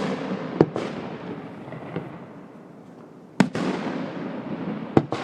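Aerial fireworks bursting: a series of sharp booms, the loudest about three and a half seconds in, each followed by a rolling echo and crackle.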